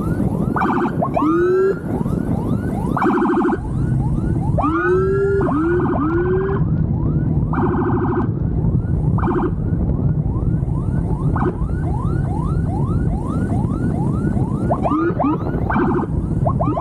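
Police escort motorcycle's electronic siren sounding without a break: a rapid run of short rising whoops, a few longer rising sweeps, and several bursts of a harsh buzzing horn tone, over steady engine and wind noise.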